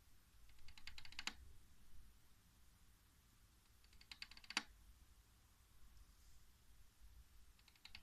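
Faint drumming of an adult male Poecilotheria ornata tarantula: three short bursts of rapid tapping, each under a second long and ending in a sharper tap, a few seconds apart. This drumming is the courtship signal of a mature male tarantula.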